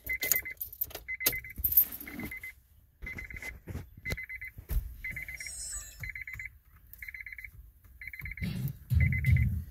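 2006 Honda CR-V's key-in-ignition reminder chime beeping steadily, about one beep every three-quarters of a second, after the key is put in the ignition, with keys clicking and jangling early on. A low rumble joins near the end.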